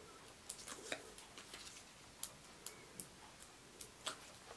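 Faint, irregular ticks and clicks as fingers handle and pick at a small paper craft piece.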